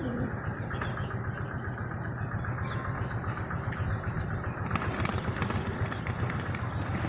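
Steady low engine hum, with a scatter of faint clicks from about five seconds in.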